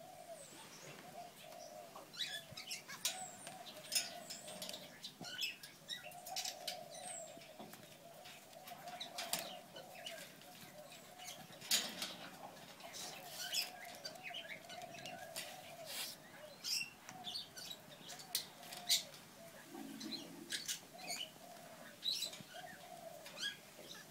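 Rainbow lorikeet scuffling and flapping on a cage floor while playing with a plastic toothbrush: irregular sharp knocks, clatters and scrapes of the brush and the bird's feet and wings against the floor, with feather rustling.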